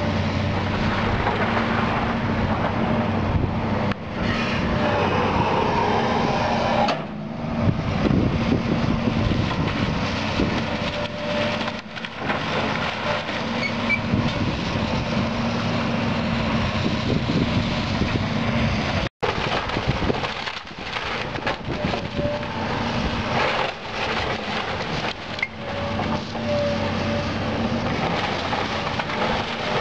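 Diesel engines of heavy equipment running steadily: a tracked skid steer loader and a tracked excavator. Over the engines come irregular cracking and crashing of wood and debris as the excavator pulls a house down.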